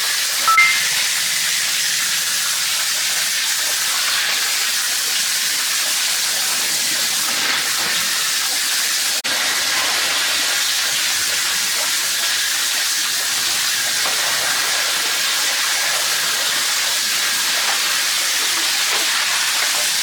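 Steady, even hiss throughout, with a brief high tone about half a second in.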